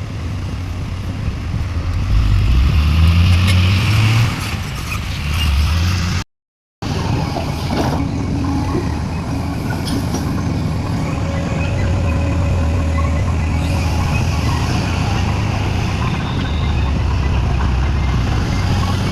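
Heavy diesel engines of an excavator loading a dump truck run steadily, swelling louder under load about two seconds in and easing back about four seconds in. The sound cuts out for about half a second a little after six seconds, then carries on steadily.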